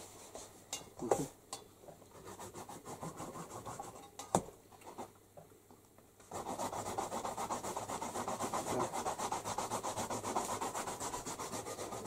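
Two sharp knocks, about one and four seconds in, then from about halfway a steady, fast rubbing and scratching noise.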